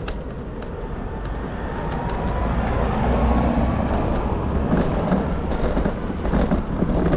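Low rumble of a motor vehicle passing close by, growing louder from about two seconds in.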